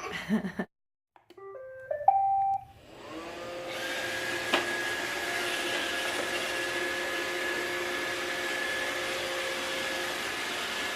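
Roomba 650 robot vacuum playing its short start-up tune of beeps, then its vacuum motor spinning up and running steadily with a constant hum. A sharp click sounds once a few seconds after it starts up.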